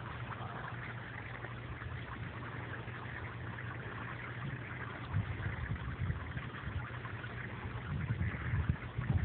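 Water churning and splashing in a small inflatable paddling pool, over a steady low hum. An irregular low rumble swells in about five seconds in and again near the end.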